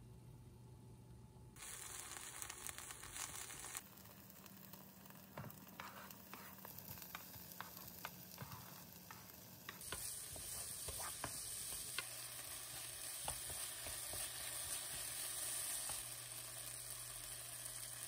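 Diced potato, onion and green onion sizzling as they stir-fry in a non-stick pan, with a spatula scraping and clicking against the pan.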